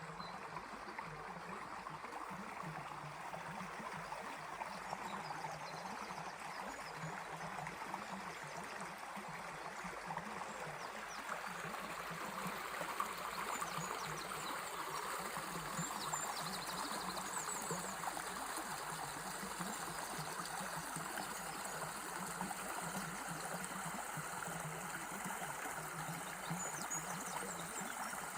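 A small river flowing steadily with a continuous rushing, trickling sound. Birds chirp faintly over it now and then, more often in the middle and near the end.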